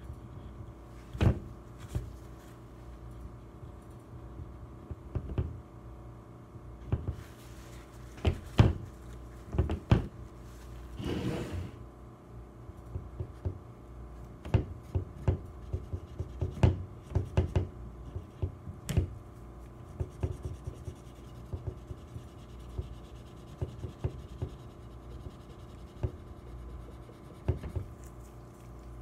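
Gloved hands working on an AR-15 lower receiver: scattered light taps and clicks of parts and tools against the receiver and table, with a brief stretch of cloth rubbing a little before the middle.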